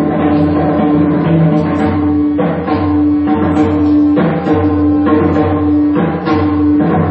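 Indian percussion solo: a two-headed barrel drum played in fast, dense strokes over a harmonium repeating a short melodic phrase with a steady held note.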